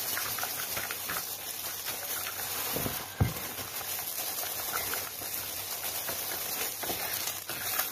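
Hands tossing and mixing thin strips of norin noodle dough with boiled meat in a plastic basin: a steady soft rustling and squishing of the oiled strands, with one dull thump about three seconds in.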